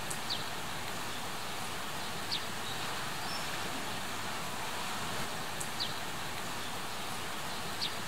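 Outdoor ambience: a steady, even hiss with a handful of short, high, falling bird chirps scattered through it.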